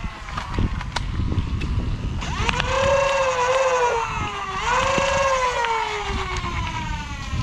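Flywheel foam-dart blaster motors whining as they spin up twice, each time rising quickly, holding with small dips, then slowly winding down toward the end, with a few sharp clicks.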